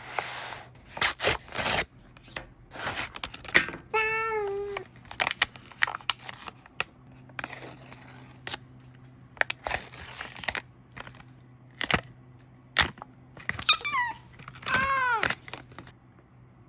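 A cat meows twice, once about four seconds in and again near the end, over the crinkling and tearing of packaging and short plastic clicks.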